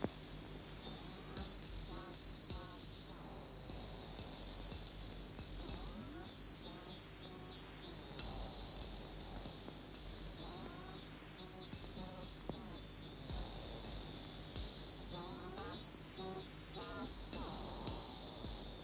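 Chorus of insects: a steady high shrill tone with pulsing calls that swell every second or two.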